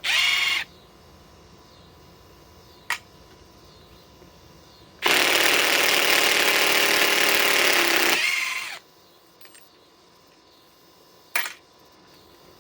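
Milwaukee 3651-20 cordless impact driver backing screws out of a tree stump: a short burst at the start, then about three seconds of hammering that winds down to a stop. There are two sharp clicks in the quiet stretches, one before the long run and one after it.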